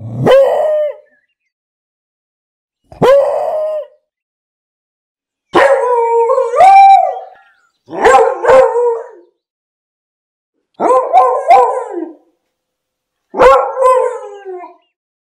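A beagle baying: six drawn-out, howling bays a couple of seconds apart, some of them doubled.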